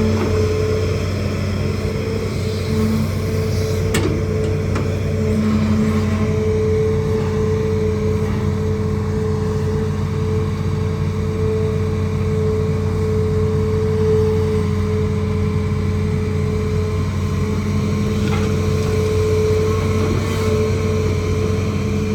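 Hitachi ZAXIS200 hydraulic excavator's diesel engine running steadily with a constant whine over a low drone, with a sharp knock about four seconds in and another near the end.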